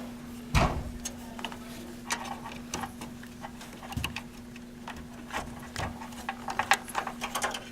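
Scattered light clicks and knocks from computer parts and cable connectors being handled inside a PC case, with a thump about half a second in and another about four seconds in, and a run of small clicks near the end. A steady low hum sits underneath.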